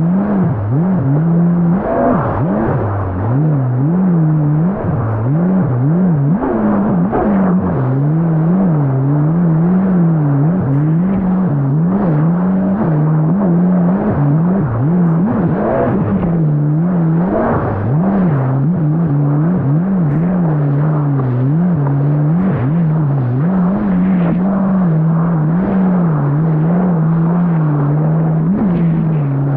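Yamaha GP1800R SVHO jet ski's supercharged four-cylinder engine running under way, its pitch rising and falling again and again as the throttle is worked.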